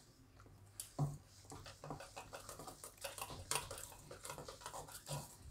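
Metal wire whisk beating gram-flour batter in a stainless steel bowl: faint, quick, irregular clinks and scrapes of the wires against the bowl, starting about a second in.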